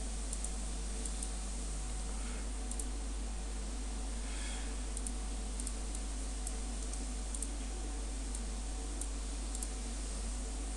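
Steady low electrical hum with faint, scattered computer mouse clicks every second or so.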